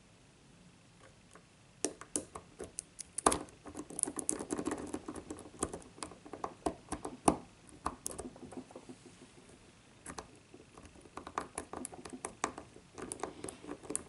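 Lock pick clicking and scraping against the pin tumblers in a small brass padlock's keyway, held under tension by a bent hair clip. Quick irregular small metallic clicks start about two seconds in, ease off briefly, then resume.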